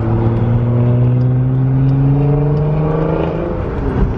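Nissan GT-R's twin-turbo engine accelerating hard, its note climbing steadily for about three seconds and then dropping away near the end.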